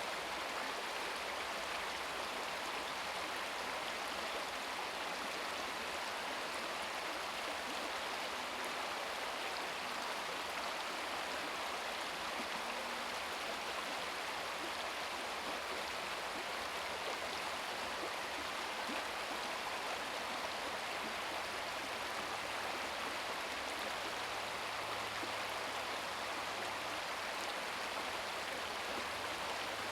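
Shallow brook babbling over stones, a steady rush and trickle of water.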